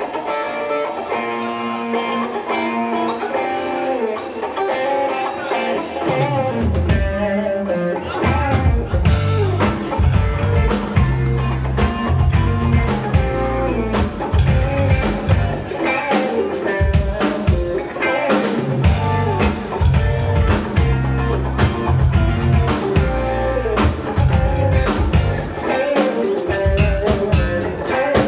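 A rock band playing live: a guitar part alone at first, with bass and drums coming in about seven seconds in and the full band from about nine seconds on.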